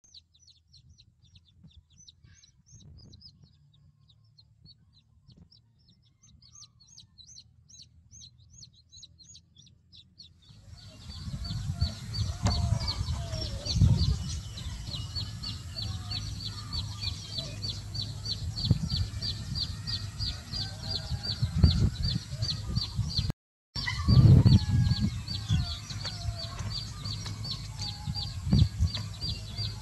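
Chickens clucking over a fast, steady string of high chirps and a low rumble, with a few knocks. The sound gets much louder about ten seconds in and drops out for a moment partway through.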